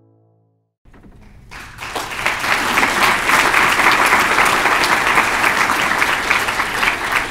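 A large audience applauding. The clapping starts about a second in, swells over the next second and then holds steady and loud. The last note of piano music fades out just before it.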